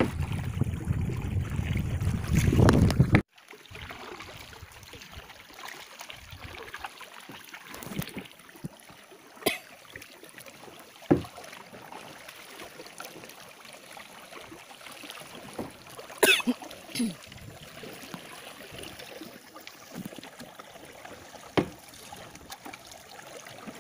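Wind rumbling on the microphone for the first few seconds, cut off abruptly. Then kayak paddling over gentle water noise: a handful of separate splashes and knocks from the paddle.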